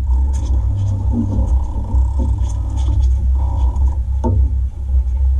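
A loud, steady low rumble aboard a small fishing boat, with a few short knocks and clatters on deck, the sharpest about four seconds in.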